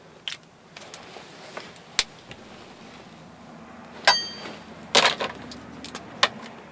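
Plastic art markers handled on a wooden desk: scattered sharp clicks and knocks. The loudest comes about four seconds in, a click with a brief ringing clink, followed by a short rattle of markers being sorted.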